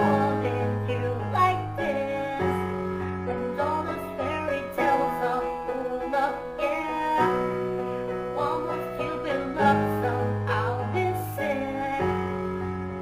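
Piano-led backing music of a pop song cover: held chords over a steady bass line, changing about every two and a half seconds.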